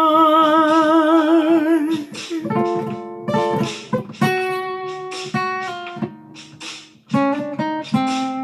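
Music: a sung note held with vibrato for about two seconds, then acoustic guitar playing separate plucked notes and chords as the song's instrumental ending.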